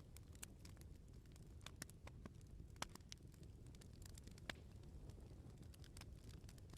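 Wood fire crackling: frequent sharp pops and snaps at irregular intervals over a low, steady rumble. Two louder pops come about three seconds and four and a half seconds in.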